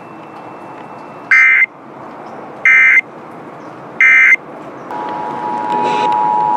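Emergency Alert System SAME header: three short, loud bursts of screechy digital data about a second and a half apart, marking the start of a Required Monthly Test alert. About five seconds in, the steady two-tone EAS attention signal begins, with a hiss underneath.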